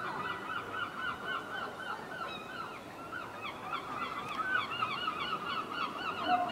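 A bird calling in a fast, unbroken run of short, clipped notes, about five a second.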